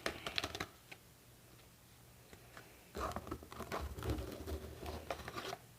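Light handling noise of spilled energy-drink powder being gathered back into its plastic tub: a few quick clicks at the start, a pause, then a couple of seconds of rustling and scraping with low thumps of handling.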